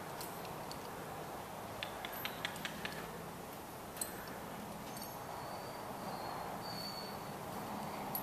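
Light taps and clicks from a young horse being led in hand on arena footing: a quick run of about five around two seconds in, then single ones a little later, over a steady background hiss.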